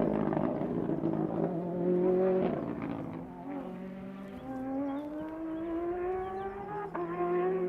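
Rally car engine passing at full effort on a tarmac stage. It is loudest in the first couple of seconds, changes gear about two and a half seconds in, then revs up in one long rising pull as it drives away, with a sharp upshift near the end.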